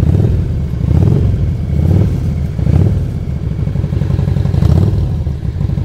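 Motorcycle engine running under way with a low, pulsing exhaust note, swelling and easing with the throttle about once a second as the bike rolls through a turn.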